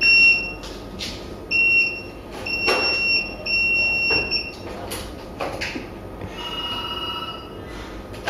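Electronic alarm from hospital equipment beeping: high steady beeps of uneven length, on and off, with a different trilling tone about six and a half seconds in. Soft knocks and rustles come between the beeps.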